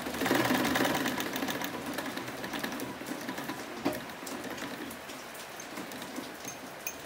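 Domestic sewing machine running fast, stitching a seam with a rapid ticking of the needle. It is loudest in the first second or so, then runs on more softly, with a single click about four seconds in.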